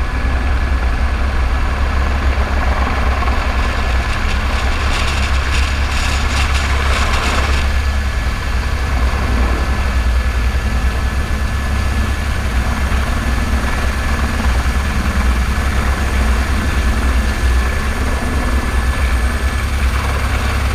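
Airbus AS350 helicopter's single turboshaft engine and rotor running, a loud, steady low rotor beat under a thin high turbine whine. A rush of hiss rises for a few seconds near the middle, and the high whine stops shortly before the end.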